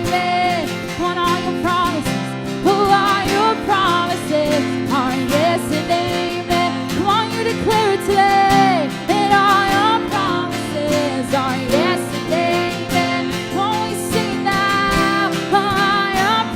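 Worship music: guitar-led band playing sustained chords under a wavering melody line, with a regular strummed beat.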